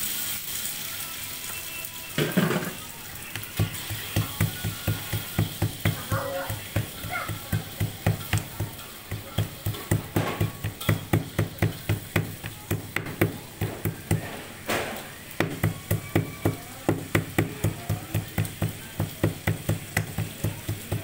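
Stone pestle pounding chopped turmeric, chilli, garlic and ginger on a plastic cutting board: a steady run of dull thumps, about two to three a second, from a few seconds in.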